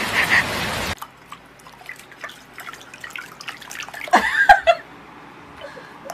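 Rain pattering for about a second, then small splashes, drips and clicks of water as a ferret dips its head and paws into a ceramic water bowl. A short squeaky call with a bending pitch, about four seconds in, is the loudest sound.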